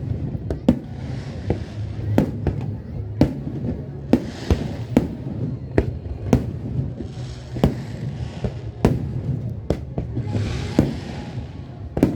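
Aerial fireworks shells bursting in rapid succession, a sharp bang about every half second to second, with a hissing crackle rising between some of the bursts.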